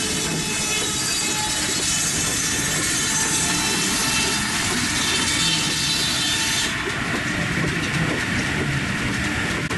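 Steam-driven sawmill running: the large circular saw blade spinning with the mill's machinery, a loud steady mechanical din with a high whine that drops away about seven seconds in.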